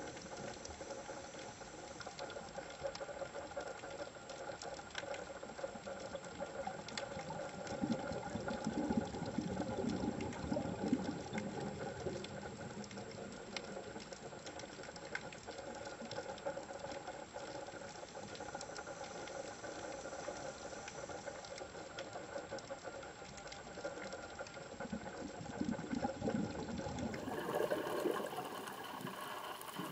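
Underwater ambience on a reef: a steady hum with a scatter of faint clicks, and two spells of bubbling, one about a third of the way in and one near the end.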